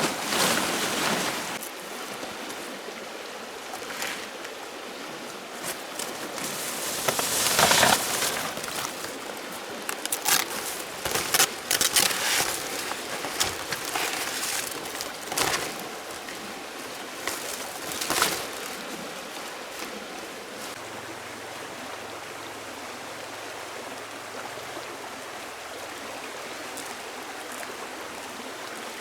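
Steady rushing of flowing water, like a forest stream, with scattered sharp rustles and knocks over the first two-thirds; after that the water is heard on its own.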